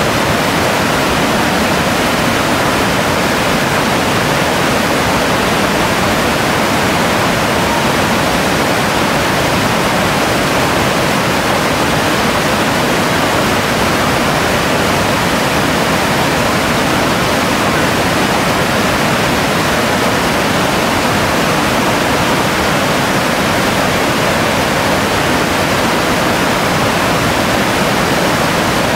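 Whitewater rapids rushing: a loud, steady, unchanging hiss of fast water.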